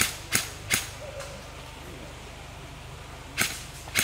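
Airsoft gun shots as sharp single pops: three in quick succession in the first second, then another about three and a half seconds in.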